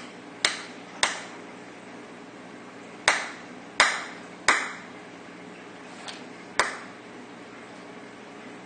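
Peacock mantis shrimp striking a clam shell with its club-like raptorial appendages. Six sharp cracks, each with a short ringing tail, come at irregular intervals of half a second to two seconds, with one fainter tap among them.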